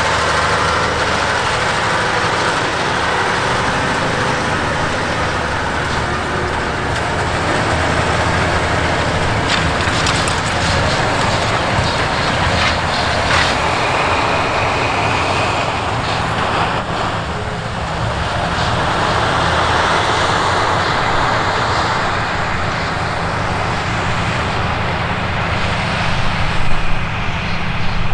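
Heavy diesel farm machinery running steadily: a low engine drone under a broad rushing noise, a little uneven near the end.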